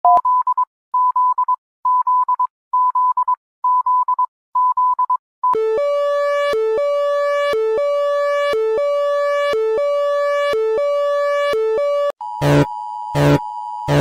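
A run of synthesized emergency alert tones. First, short clusters of beeps at one pitch repeat about once a second; about five and a half seconds in, a buzzy two-pitch alarm takes over, a long higher note dipping briefly lower about once a second; near the end it changes to a steady tone cut through by loud low thumps about every two-thirds of a second.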